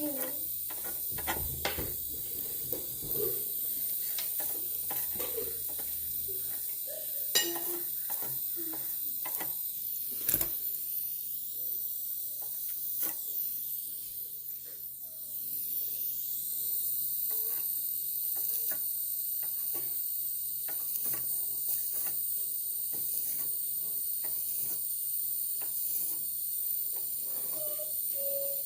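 Small scattered clicks and taps from handling a pencil soldering iron and a PCM circuit board during hand soldering, including two sharper clicks, over a steady high hiss.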